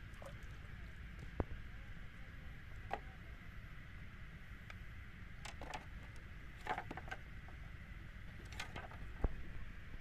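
Scattered short taps and knocks as a freshly hooked fish is landed and handled on a bamboo platform, over a steady low rumble and faint hiss.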